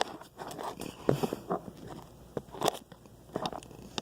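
Irregular knocks, clicks and rustling of things being handled and moved about, a sharp knock every second or so.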